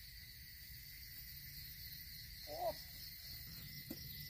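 Forest insects chirring in a steady, softly pulsing high-pitched drone. A brief vocal sound comes about two and a half seconds in, and a small click near the end.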